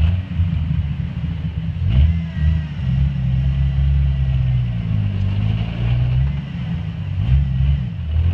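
Jeep Wrangler engine idling and revving in short bursts as the Jeep crawls over boulders, its pitch rising and falling several times. A knock about two seconds in.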